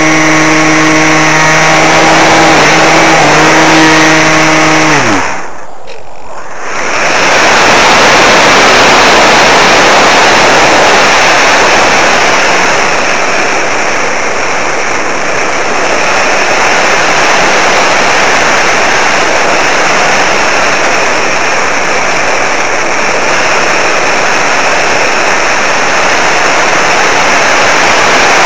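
Electric motor and propeller of an RC model aircraft whining at a steady pitch, then throttled off about five seconds in, the pitch falling away fast. After a brief lull, a loud steady rush of wind over the airframe and microphone as the model glides with the motor off.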